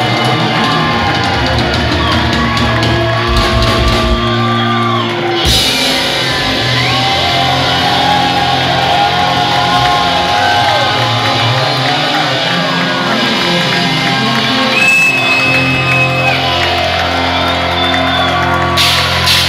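Live rock trio of drum kit, electric bass and electric guitar playing loudly in a large hall, with drawn-out bending notes over the band and cymbal crashes near the end.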